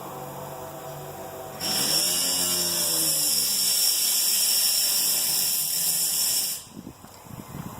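Angle grinder cutting sheet metal: a loud, harsh high hiss with a steady high-pitched whine, starting abruptly about a second and a half in and cutting off about five seconds later.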